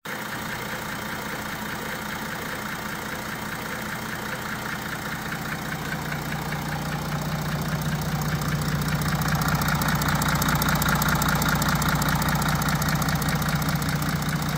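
Audi Q7's 3.0 V6 TDI diesel (CRT engine) idling with a steady rattle, growing louder over the first several seconds. The rattle is the sign of this engine's known factory defect of failing camshafts.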